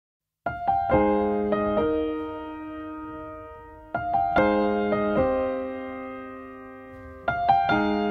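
Slow, gentle piano introduction to a song: a few notes and chords are struck and left to ring and fade, in three phrases starting about half a second in, about four seconds in, and near the end.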